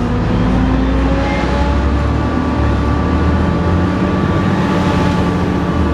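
Volvo B7TL double-decker bus's six-cylinder diesel pulling hard, with the whining 'hoover' tone these buses are known for riding over the engine note and slowly rising in pitch as the bus gathers speed.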